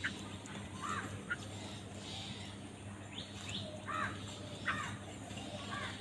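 House crows giving short caws, about six separate calls scattered through, over a faint steady low hum.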